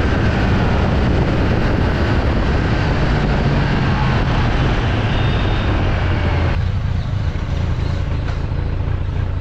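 Kawasaki Z900 inline-four engine running under way, with wind rushing over the microphone. About two-thirds of the way through the wind noise falls away as the bike slows to a stop, and the engine keeps running.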